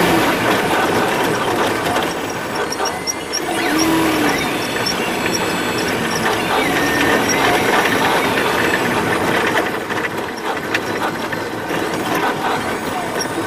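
Piper Pawnee's piston engine running, heard from inside the cockpit, with rattling and creaking from the airframe as it rolls across grass.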